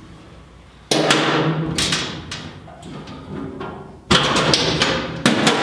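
Empty aluminium fuel cell knocking and scraping against the steel cage and floor pan as it is worked into place. There is a sharp knock about a second in and another just after four seconds, with smaller ones between, each ringing briefly.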